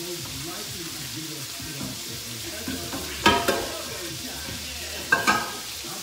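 Food sizzling steadily in a pan on the stove, with two sharp ringing clinks a little after three seconds and again about five seconds in.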